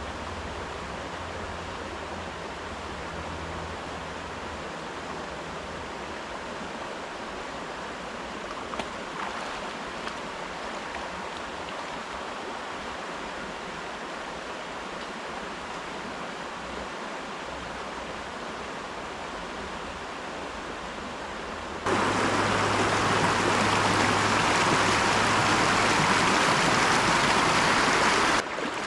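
Mountain river running over rocks, a steady rush of water. About 22 seconds in the rush suddenly becomes louder and brighter for about six seconds, then drops back just as suddenly. A faint click or two about nine seconds in.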